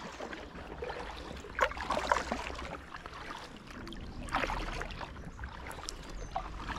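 Kayak paddle strokes splashing in the water, a stroke every couple of seconds, with a steady low rumble of wind on the microphone.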